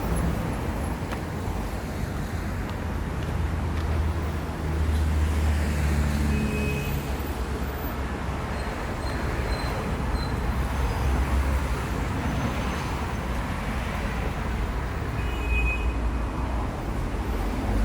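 City road traffic passing: a steady low rumble of car and bus engines and tyre noise.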